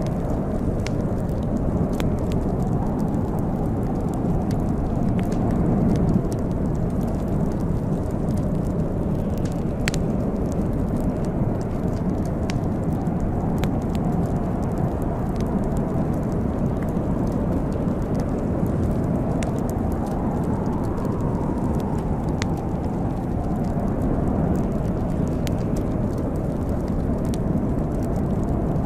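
Wood fire crackling in a fireplace, with scattered sharp snaps and pops over a steady low rushing noise.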